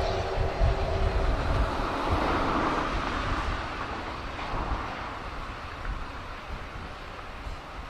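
JNR Class D51 steam locomotive (D51 200) and its train running on and fading away. Its rumble and rail noise die down steadily, and the tail of its steam whistle fades out in the first second.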